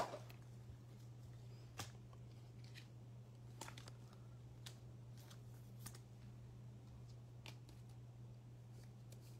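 Faint scattered clicks and light rustles of trading cards being handled and sorted by hand, over a steady low hum.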